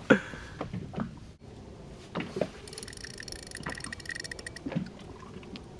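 Spinning reel on a rod bent hard under a hooked bluefin tuna: a rapid, even ticking with a faint whine for about two seconds in the middle, among scattered light knocks.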